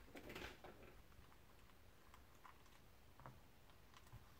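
Near silence, with a few faint clicks in the first second and a couple more later on, from a screwdriver and revolver parts being handled while the grip screw is taken out.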